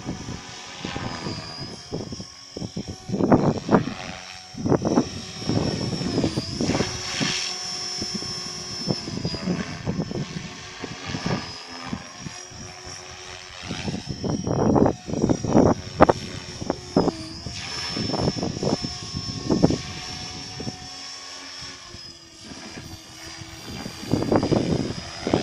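Gaui X5 electric RC helicopter flying aerobatics in idle-up: a high, steady motor and rotor whine whose pitch dips briefly several times under load, with irregular loud rushes of noise.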